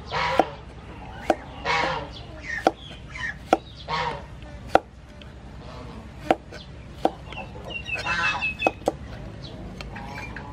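Cleaver chopping through a vegetable onto a thick wooden chopping board: sharp single knocks at an uneven pace, about one a second. Chickens cluck loudly several times in between.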